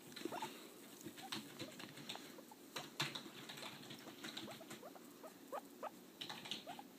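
Small pet making a string of soft, short rising squeaks, mixed with light clicks and scratching.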